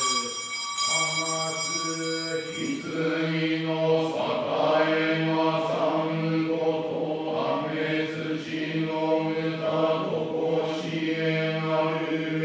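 A Shinto prayer chanted in a steady monotone, the voice holding one pitch and moving through the syllables in an even rhythm.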